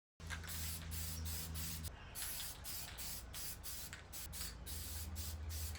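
Aerosol spray-paint can hissing in a run of short, repeated bursts, painting the turbo's turbine housing, with a low steady hum underneath.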